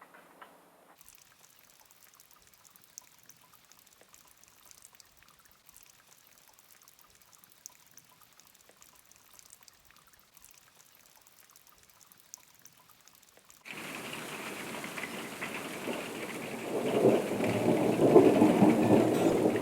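Faint scattered ticks over near silence, then heavy rain cuts in suddenly about two-thirds of the way through and grows louder, pouring down hard near the end.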